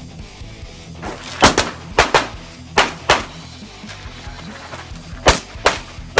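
Handgun fired in quick pairs of shots, about eight in all: three pairs in the first half, a pause of about two seconds, then another pair. Background music plays underneath.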